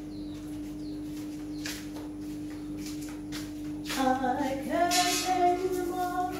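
A woman's voice singing, starting about four seconds in with a few held notes, over a steady low hum and a faint knock before it.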